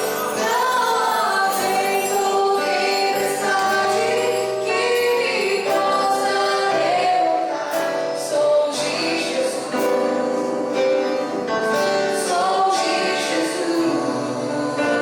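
Gospel worship song: several voices singing a slow melody over instrumental accompaniment.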